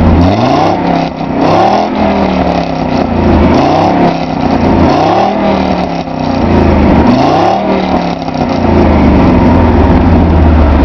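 1985 Audi 100 C3's 2.2-litre inline five-cylinder engine heard at the tailpipe, revved in about five quick blips that each rise and fall back, then settling to a steady idle near the end.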